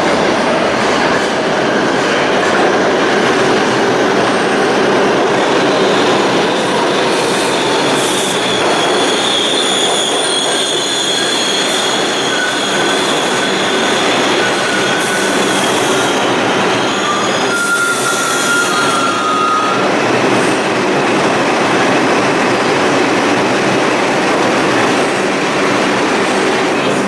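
New York City subway train moving through the station with a steady loud rumble. High thin wheel squeals come and go over it, strongest in the middle stretch.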